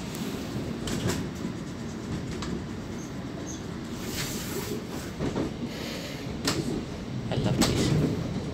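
Electric passenger train running at speed, heard from inside at the doors: a steady low rumble of wheels on rail, with scattered clicks and knocks from the track and the carriage. The knocks are loudest shortly before the end.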